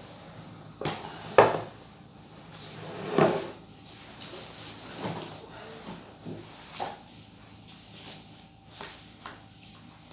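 Knocks and bumps of a wood-framed whiteboard being handled and set aside, a string of separate thumps with the loudest about a second and a half in, followed by lighter knocks.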